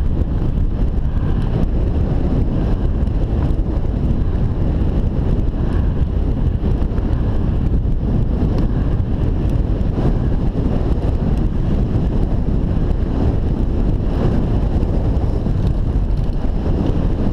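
Wind buffeting a helmet-mounted camera's microphone as a mountain bike descends a dirt and gravel road at speed, with tyre rumble and faint clicks and rattles from the bike over the rough surface.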